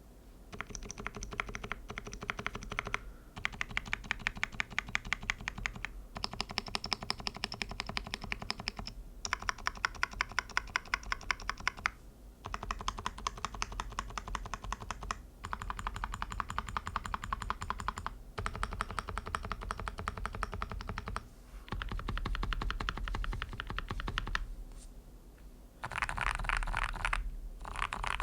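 Fast typing on a Mode65 custom mechanical keyboard with hand-lubed TTC Bluish White switches, an aluminium plate, case foam and GMK keycaps: dense runs of quick keystrokes lasting about three seconds each, separated by short pauses. The switches have dampeners for the bottom-out but not the top-out. The last run, near the end, is louder.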